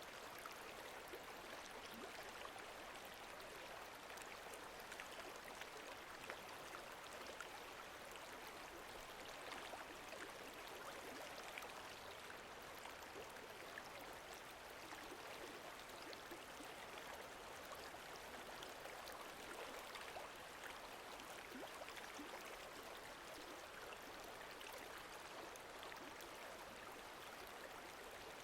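Lake water moving gently, a faint steady wash of small splashes and trickles.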